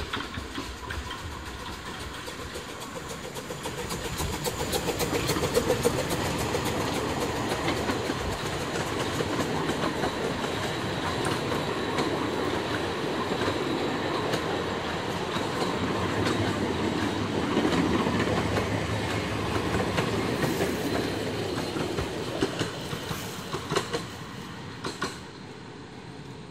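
A miniature 381 mm-gauge park railway train, hauled by a Krauss Liliput steam locomotive, passing close by: its wheels clatter over the rail joints, growing louder from about four seconds in as the carriages roll past, then fading as it moves away, with a few sharp clicks near the end.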